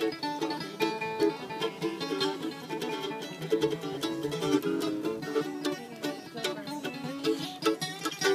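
Acoustic bluegrass string band jamming, with many quick plucked notes played over a steady strummed backing.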